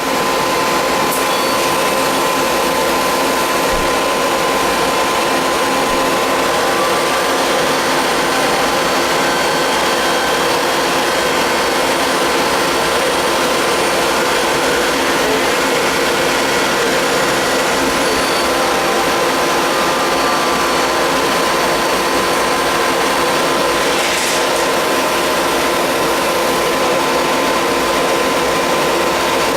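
NC compound automatic lathe running while machining metal: a steady whirring machine noise with several held tones. A faint rising whine comes about halfway through, and a short hiss about three-quarters of the way in.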